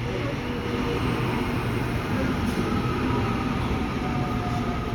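Auckland AM class electric multiple unit running into the platform: a steady rumble of wheels and running gear, with a faint electric whine that sinks slightly in pitch as the train slows.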